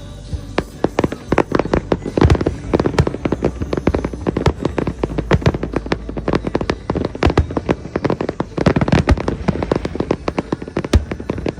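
Fireworks going off in quick succession: many sharp bangs and crackles each second, thickest about two seconds in and again near nine seconds.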